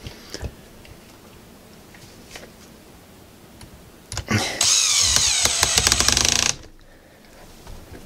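Cordless electric screwdriver running for about two seconds, driving a screw into a cordless drill's plastic case, after a few faint handling clicks. It starts a little past the middle and cuts off suddenly.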